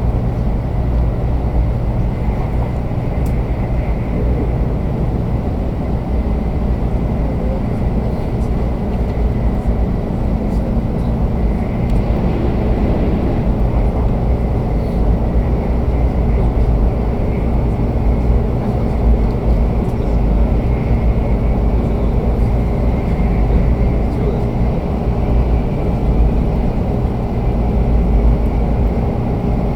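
Running noise heard inside the cabin of a 500-series Shinkansen travelling on the line: a steady low rumble of wheels and running gear, with a faint steady high-pitched tone above it.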